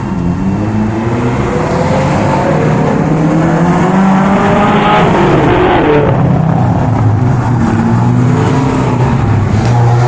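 Off-road 4x4 engines running at the start line, one revving so its note rises and falls near the middle while others keep up a steady low hum.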